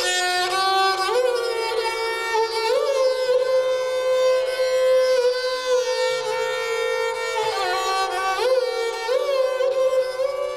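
Slow solo melody bowed on a fretted Indian bowed string instrument of the esraj family, in raga Basant Mukhari. Long held notes are joined by sliding ornaments, with several upward slides into new notes. A faint low steady drone sounds beneath.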